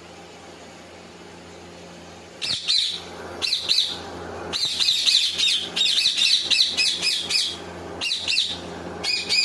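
Rose-ringed parakeet calls: sharp, high chirps in quick bouts, each sweeping rapidly up and down in pitch. They start about two and a half seconds in, after a faint steady hum.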